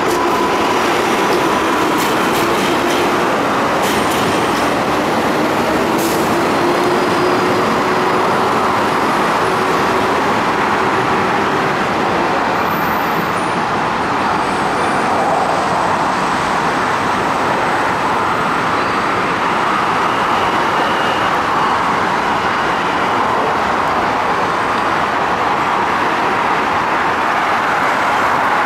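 An R142A subway train accelerating out of an elevated station, its motors giving a whine that rises slowly over the first dozen seconds, with a few sharp clicks from the wheels and rails in the first six seconds. After that comes steady train and rail noise.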